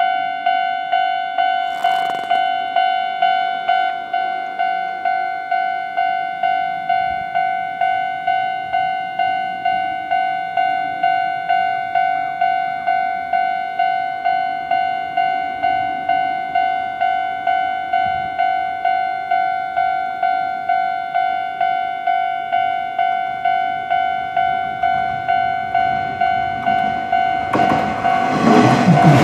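Japanese level-crossing warning bell ringing: an electronic bell striking one tone over and over in an even rhythm, each strike dying away, the signal that a train is coming. Near the end the rumble of an electric train arriving at the crossing rises under the bell.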